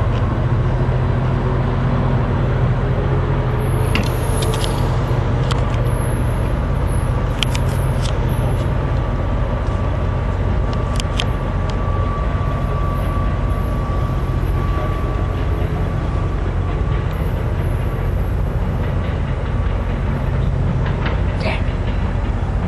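Diesel-hauled commuter train pulling away down the line: a steady low rumble with scattered sharp clicks, and a faint thin ringing tone for several seconds in the middle.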